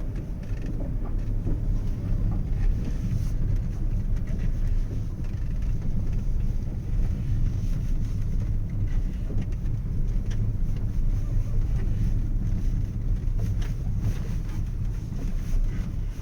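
Steady low rumble of wind buffeting the microphone, with a faint hiss above it.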